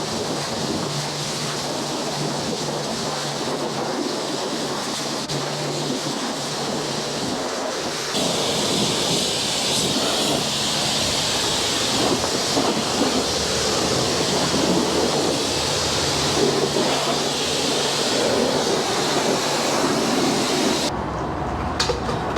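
Pressure washer jet spraying water over an off-road buggy: a steady hiss of spray with a low hum underneath. It grows louder about eight seconds in, and the spray cuts off shortly before the end.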